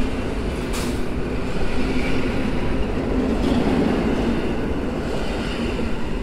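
Koleje Mazowieckie EN57 AKM electric multiple unit running past along the platform: a steady rumble and hiss of the moving train with a low hum underneath, and one sharp click about a second in.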